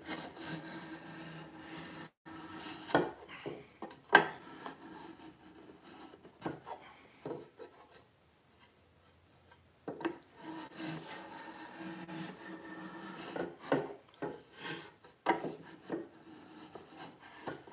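Small hand plane taking shavings off the edge of a hard maple drawer: long scraping strokes with a quieter pause midway and a few sharp knocks of the plane against the wood.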